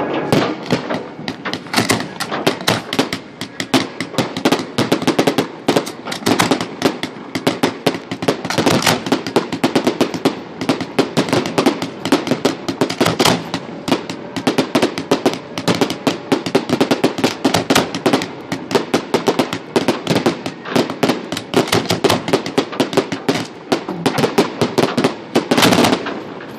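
Fireworks going off close by: a dense, continuous crackle of popping bursts, many per second, with a louder bang near the end.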